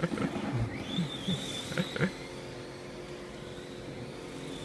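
Electric 1/12-scale RC GT car lapping, its motor and gears giving a thin high whine that wavers up and down, fading out around two seconds in and rising again near the end.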